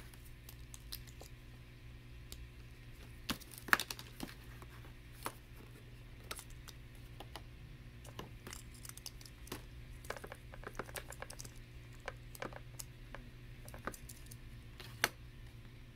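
Small plastic Lego bricks clicking against each other as they are handled and snapped together: scattered sharp clicks, the loudest about four seconds in and again near the end, over a faint steady low hum.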